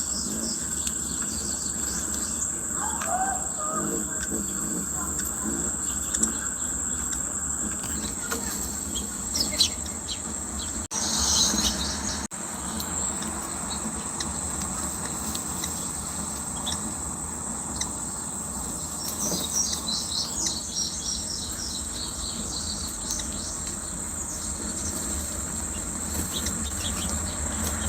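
A steady high-pitched insect trill runs throughout, with scattered short bird chirps over it. About eleven seconds in there is a brief, louder rustling burst.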